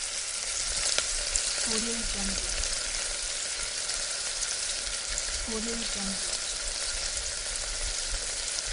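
Food deep frying in hot oil in a pan: a steady, medium-strength sizzle made of dense fine crackles.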